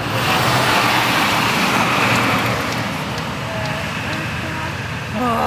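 Street traffic with a vehicle passing close by, a swell of road noise that peaks about one to two seconds in and then fades.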